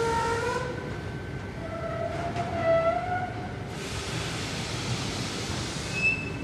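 Factory machinery running on a melamine board laminating line: a steady rumble and hiss with squealing tones that come and go, loudest a little before the middle. A short high squeak sounds near the end.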